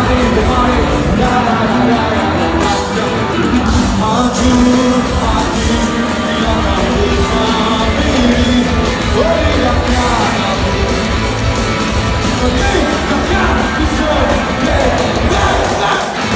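Pop-rock band playing a song live, with a lead singer over drums and guitars.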